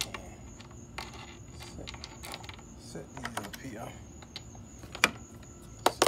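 Plastic engine-bay trim and its clips being handled and pried off, making scattered clicks and taps. Two sharp clicks about a second apart near the end are the loudest.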